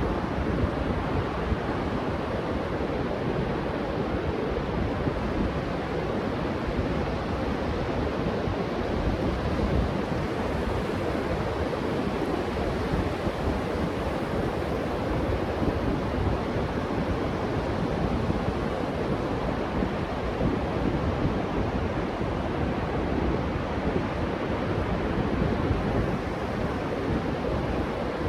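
Ocean surf breaking steadily on a sandy beach, mixed with wind noise on the microphone.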